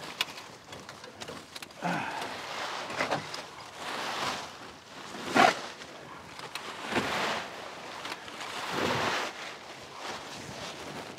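Dry fallen leaves rustling and crunching as they are raked and cleared by hand, in uneven swishes every second or two.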